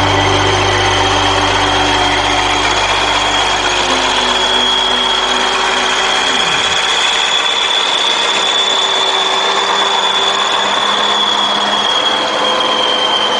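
Loaded off-road timber truck and log trailer crawling through deep mud, with a steady high-pitched whine that drifts slightly in pitch over the running noise. A low engine drone is strong at first and fades within the first few seconds.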